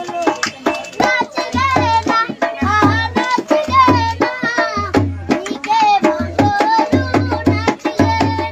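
A boy singing a Garhwali folk-style melody with a wavering, ornamented voice over a steady hand-drum beat with a deep repeating thump.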